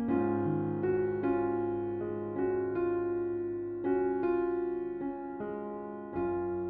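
Background music: a gentle electric piano melody, notes struck about every half second and left to ring.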